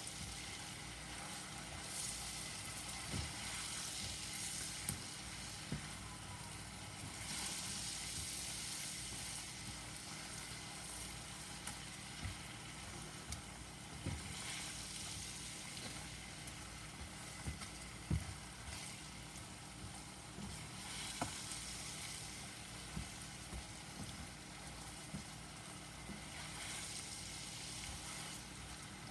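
Apple slices frying in butter and sugar in a nonstick skillet over medium heat, a steady sizzle that swells and eases every few seconds. A silicone spatula stirring the slices gives a few short taps against the pan.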